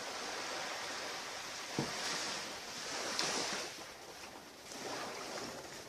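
Surf washing onto a beach: a steady rush that swells and eases every second or two, with a short knock about two seconds in.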